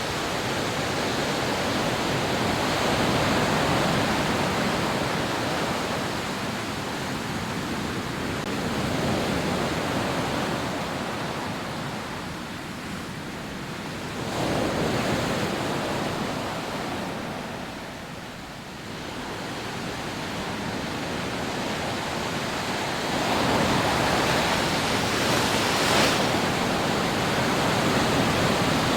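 Rough sea waves breaking on a sandy beach, a continuous rushing surf that swells as each wave crashes and eases between them.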